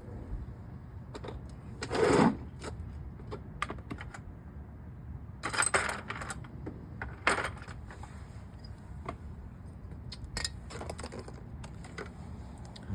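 Metal tools and small parts clinking and rattling as they are handled, with scattered ticks and several louder clattering bursts.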